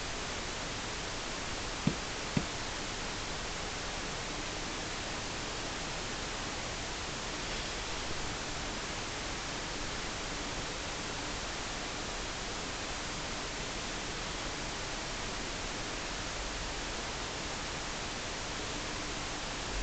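Steady even hiss, with two short clicks close together about two seconds in.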